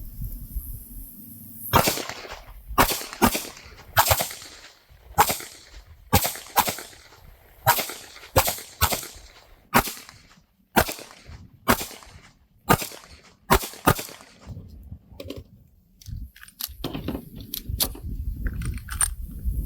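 Two 9mm micro-compact pistols, a Kimber Micro 9 and a Ruger Max-9, firing at the same time at an uneven pace. About twenty sharp shots come over some twelve seconds, starting about two seconds in. A few fainter pops follow near the end.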